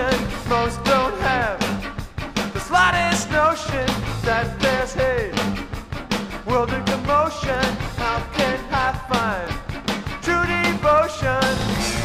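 Indie rock band recording playing: a steady drumbeat and bass under a melodic line that repeatedly bends up and down in pitch.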